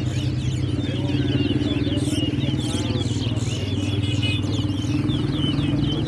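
Caged towa towa seed finches singing fast runs of short chirping notes, one after another, in a song contest. Under the birdsong runs a steady engine drone.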